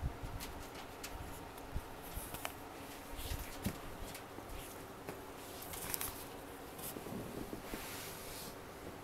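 Four-day-old Scottish terrier puppies crawling and wriggling on a blanket: soft rustling and scratchy shuffling, with a brief faint squeak about two and a half seconds in.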